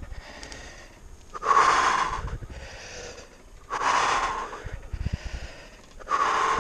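A mountain biker breathing hard while riding, three loud exhales about two and a half seconds apart. A low rumble from the bike rolling over the dirt track runs underneath.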